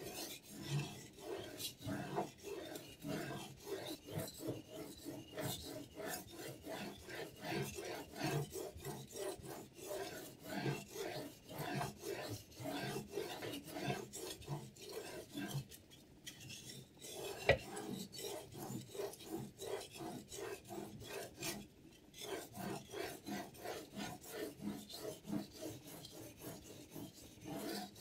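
Whetstone on a Hapstone T1 guided knife sharpener rasping along a knife edge in quick, even back-and-forth strokes, several a second. The strokes pause briefly a little over halfway, with a single sharp click just after the pause.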